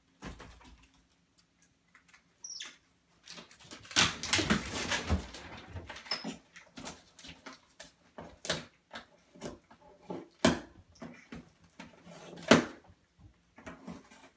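Capuchin monkeys handling a toy tool bench: irregular knocks, clicks and rattles, with a dense clatter about four seconds in and a sharp knock near the end.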